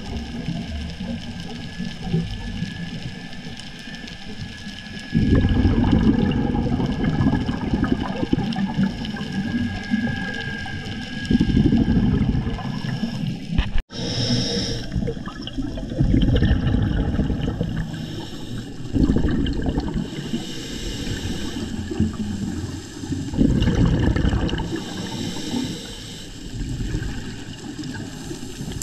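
Scuba diver breathing through a regulator under water: a loud rush of exhaled bubbles every few seconds, between quieter inhalations. The sound drops out for an instant about halfway through.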